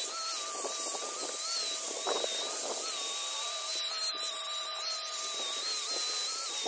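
Corded electric angle grinder running with a steady high whine while its disc grinds out a hollow in a log carving. Short rasping scrapes come through as the disc bites into the wood.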